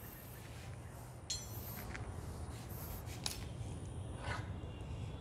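Quiet room tone with a steady low hum and a few faint clinks and taps.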